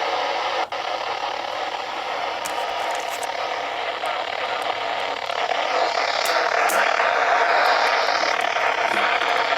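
Static hiss from a Reecom R500 weather-band radio tuned to channel 4 on a weak NOAA Weather Radio signal. It drops out once just under a second in and grows louder about six seconds in.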